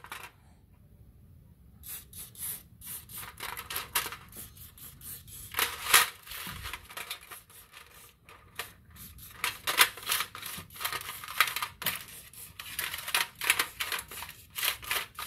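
Motorcycle roller chain clinking and rattling, its links knocking against each other and the metal tray as it is handled, with short hisses of aerosol chain lube sprayed onto it.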